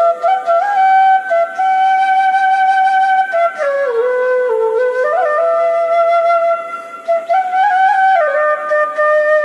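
Slow solo flute melody with long held notes and small slides between pitches.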